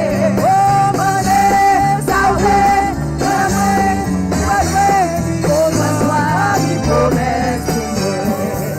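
Live gospel worship music played by a church band: a bending melody line over stepped bass notes and a steady beat.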